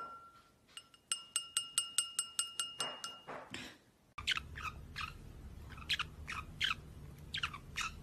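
A wine glass struck over and over, about five clinks a second, each ringing with a clear bell-like tone. After that a small parrot gives a run of short, falling chirps.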